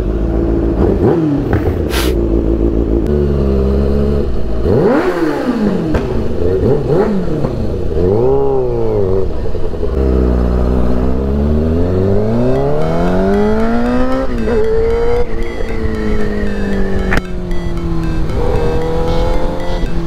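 Kawasaki ZX-6R inline-four engine pulling away and accelerating, its pitch rising and falling several times, then holding a steady pitch for the last few seconds. There is a sharp click about two seconds in.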